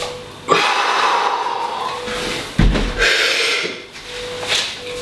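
Heavy, forceful breathing: long loud exhales and sharp inhales from a man straining through double kettlebell cleans. A dull low thud comes about two and a half seconds in.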